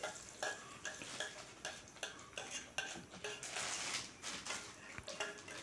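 A run of light, irregular metal clinks and scrapes, about two a second, from a utensil against a steel bowl and an aluminium kadai as the last of the date paste is scraped into the pan. A faint sizzle from the paste in hot ghee runs underneath.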